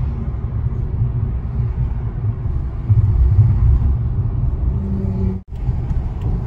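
A car being driven, its steady low road and engine rumble heard from inside the cabin, with a brief break about five and a half seconds in.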